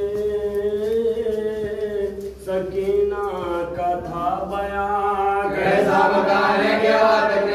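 A group of mourners chanting a Muharram lament together, long drawn-out sung lines in unison. The chant swells louder and fuller about five and a half seconds in.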